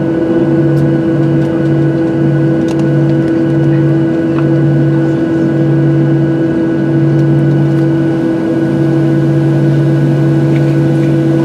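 Steady droning hum of a Boeing 737-700 heard inside the cabin on the ground, with several steady tones over it. A low drone beats in even pulses that lengthen and smooth into a continuous tone about eight seconds in.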